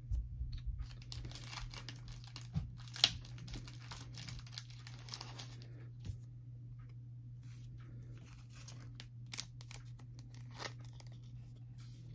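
A thin plastic penny sleeve rustling and crinkling as a trading card is handled and slid into it, with scattered small clicks and taps, the sharpest about three seconds in. A steady low hum runs underneath.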